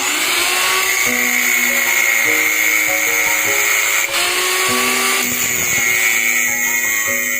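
A handheld power tool running steadily with a high whine, easing off briefly about four seconds in, over background music.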